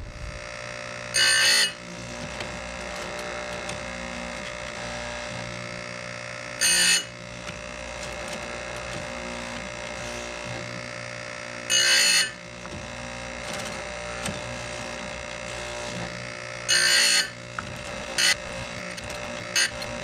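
Oregon electric bench chainsaw-chain grinder running with a steady hum, its wheel grinding a cutter tooth in four short loud rasps about five seconds apart, one tooth at a time, to sharpen a dull chain. A few light clicks follow near the end.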